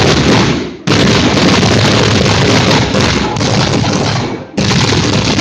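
Kerala temple fireworks going off in a rapid ground-level barrage, the explosions so dense they merge into one continuous loud roar. It dips briefly about a second in and again near the end, each time starting up again abruptly.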